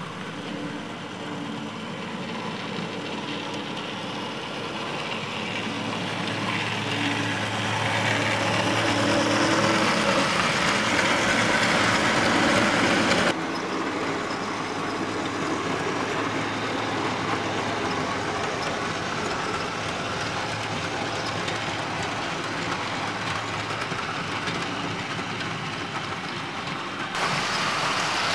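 Model railway locomotive running along the track: a steady rolling rumble with a low motor hum, growing louder over the first half, then dropping suddenly about halfway through and carrying on at an even level.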